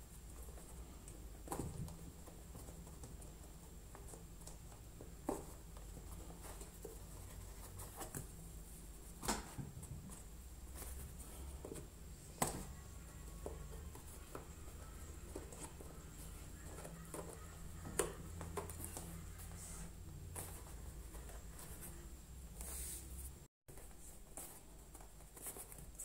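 Faint handling sounds of hand-stitching a leather toy: thread drawn through leather and fingers rubbing the leather. A handful of sharp clicks and taps are scattered through, over a steady low hum, and the sound drops out completely for a moment near the end.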